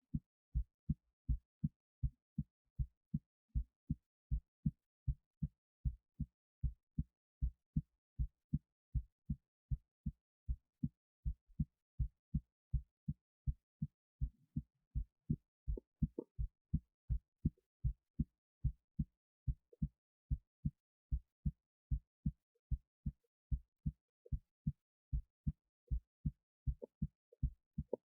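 Human heartbeat recorded at the chest: a steady, regular run of low lub-dub thumps, with a 25 lb weight resting on the left side of the chest.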